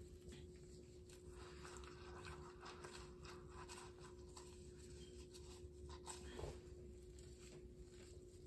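Faint rubbing and wiping of a damp sponge over freshly grouted mosaic tiles, over a steady faint hum.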